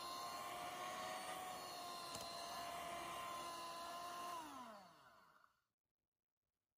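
Electric hand mixer running steadily, its beaters whipping a thick white cream. About four seconds in it is switched off, and the motor hum falls in pitch as it winds down to silence.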